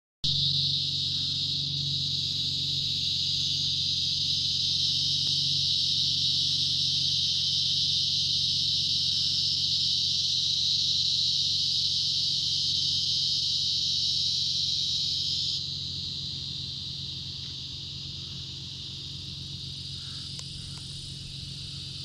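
Steady, high-pitched drone of insects singing in the trees, over a faint low hum. About two-thirds of the way through, part of the chorus stops and the drone drops in loudness.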